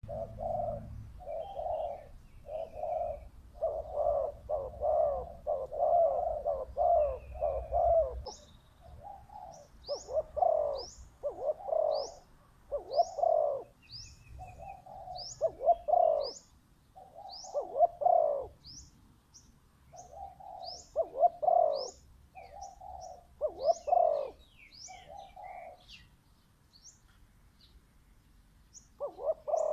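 Spotted dove cooing over and over in short phrases, the call used as a lure for trapping. From about eight seconds in, a smaller bird adds quick high chirps about once a second.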